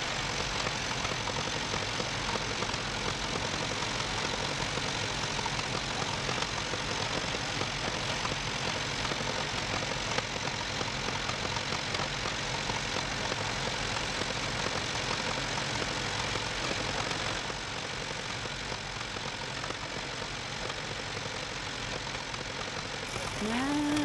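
Grey Ferguson tractor engine idling steadily, a little quieter from about two-thirds of the way through.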